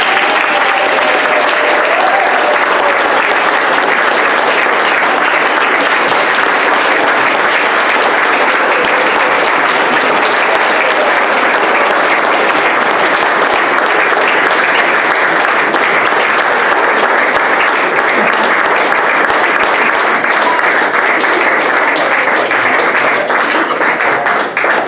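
A room of people applauding, loud and sustained, with a voice or two heard in the first few seconds; it thins into separate claps near the end.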